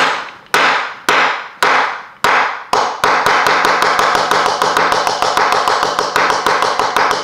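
Meat mallet pounding fennel seeds in a plastic zip-top bag on a wooden cutting board to crack them. It starts with single blows about twice a second, then about three seconds in switches to rapid pounding, about five blows a second.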